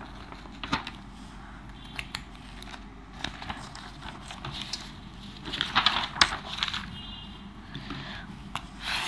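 Sheets of paper rustling and crinkling as they are handled, with scattered light clicks and knocks; the loudest rustling comes about six seconds in.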